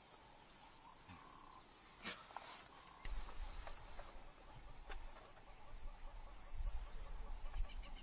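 Insects chirping in a fast, steady, high-pitched pulsing trill, with a few short bird-like chirps in the first half and a sharp click about two seconds in. A low rumble joins about three seconds in.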